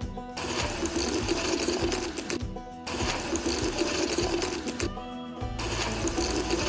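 A small electric motor running with a busy whirring clatter, broken twice by short edit cuts, over background music.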